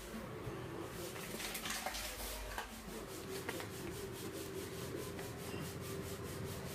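Plastic food packet rubbed and crinkled in hands close to the microphone: scratchy rubbing that settles about three seconds in into quick, even scratches about five a second, over a faint steady hum.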